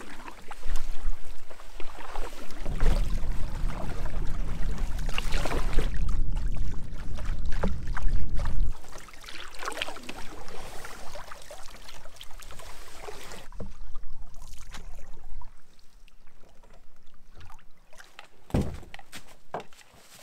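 Canoe being paddled: a wooden paddle dipping and pulling through the water alongside the hull, stroke after stroke. A heavy low rumble covers the first eight or nine seconds, then drops away, leaving quieter strokes and splashes.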